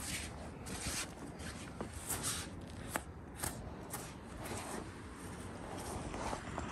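Knife slicing through a deer's hide as it is skinned, the skin rasping away from the carcass in short, repeated strokes, with a few sharp clicks.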